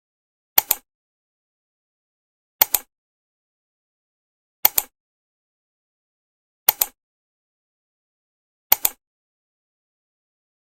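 Five sharp double clicks, about two seconds apart, with dead silence between them.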